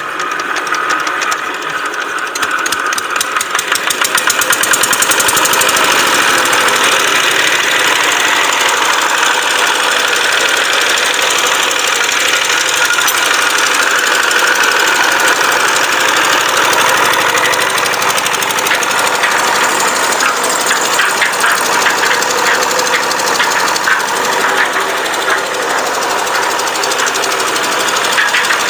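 Kubota ER75 single-cylinder diesel engine catching after hand-cranking and picking up speed over the first few seconds, then running steadily. It is being warmed up after standing unused for a long time.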